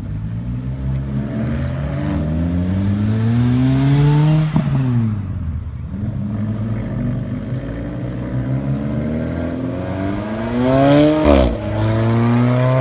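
Two small sports cars, a Lotus Elise and then an Alfa Romeo 4C, accelerate hard past one after the other. Each engine climbs in pitch through the revs and then drops sharply as the car goes by, about four seconds in and again near the end.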